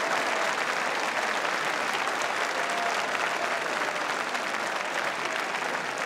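Baseball spectators applauding a two-run home run: many hands clapping at once, steady throughout.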